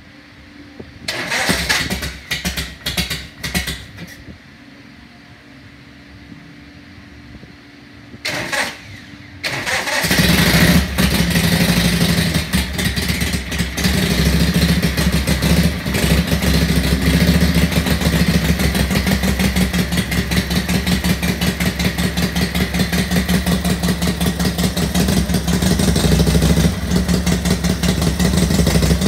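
1955 Harley-Davidson Panhead V-twin engine, freshly restored, bored and blueprinted, being started on a run stand. A few short bursts of cranking in the first seconds, a pause, one more brief try, then it catches about ten seconds in and runs with a steady, rapid firing beat.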